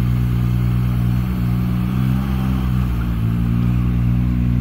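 Giant 254 Tele HD mini loader's engine running steadily, its pitch wavering slightly in the middle as the loader drives.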